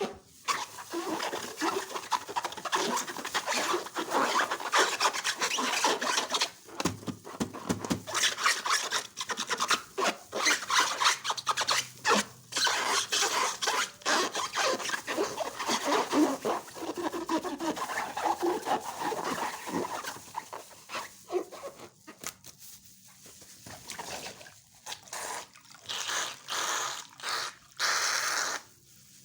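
Slime being squeezed and worked by hand: a dense, continuous run of small wet crackles and clicks that breaks into shorter bursts with gaps in the last third.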